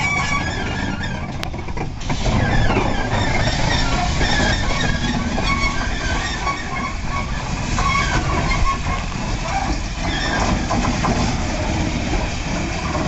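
Great Western pannier tank steam locomotive 9681 running slowly at close range: a steady rough noise of the engine and its running gear.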